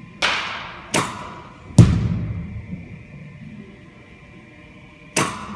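Sharp knocks from softball batting practice in a cage: a bat cracking against a ball, quickly followed by two more impacts, the third a heavy, deep thump and the loudest. Another sharp knock comes near the end.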